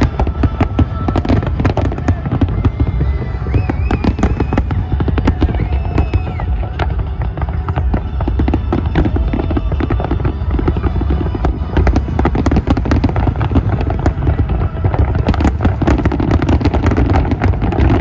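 Fireworks display going off nonstop: a dense run of rapid bangs and crackles over a heavy low rumble.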